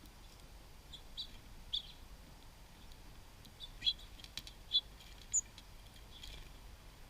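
Small songbirds at a feeder giving short, high chirps and chips, about five scattered calls with uneven gaps, the last one higher-pitched, along with a few faint clicks.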